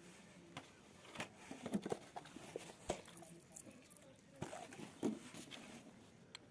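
Irregular light clicks and knocks of hand tools and small chainsaw parts being handled on a bench, busiest in the middle.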